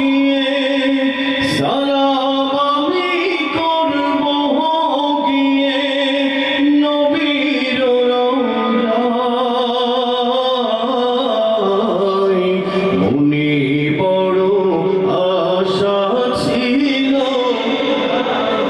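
Man singing an Islamic gazal into a microphone, drawing out long, wavering held notes.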